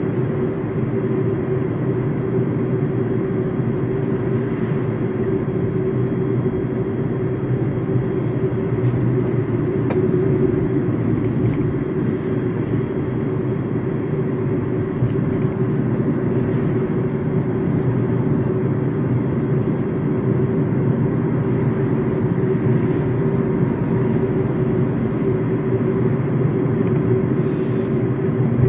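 MG ZS on the move, heard from inside the cabin: steady road and engine noise, a constant low sound with no changes or sharp events.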